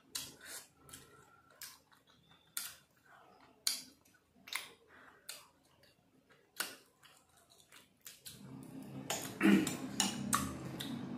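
Metal forks clicking and scraping on plates as soft, syrupy rasgulla and gulab jamun are picked up, in sharp clicks every second or so. About eight seconds in, a louder, steadier sound with low held tones comes in under the clicks.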